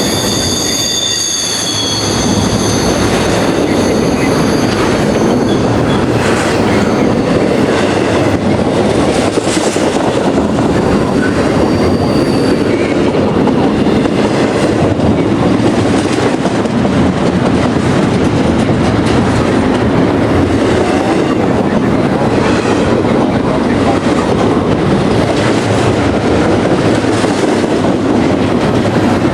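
Freight train rolling on the rails: a steady rumble and clatter of wheels and cars, with a high wheel squeal of several steady tones that fades out about two seconds in.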